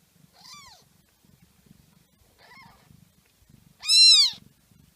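Newborn kittens mewing: three short, high-pitched mews that rise and fall in pitch, two faint ones followed by a much louder one near the end.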